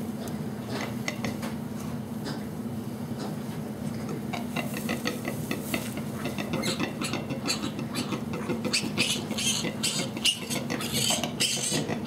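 Hay bedding rustling and crackling as it is handled, getting busier in the second half, over a steady low hum.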